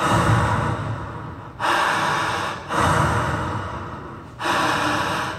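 Slow, deep breaths in and out, loud as if into a handheld microphone, four long breaths, each starting sharply and trailing off: a stage hypnotist's paced breathing that leads the volunteers deeper into trance.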